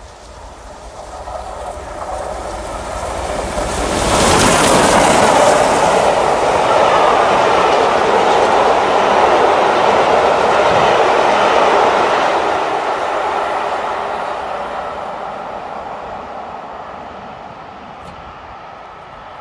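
Bulleid West Country class three-cylinder steam locomotive and its train passing close by at speed. The sound builds as it approaches, peaks sharply as the engine goes past about four seconds in, and stays loud as the coaches' wheels run over the rails. It then fades as the train draws away.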